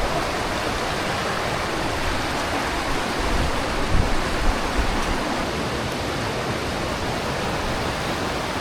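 Mountain stream rushing steadily, with a few low thumps about four seconds in.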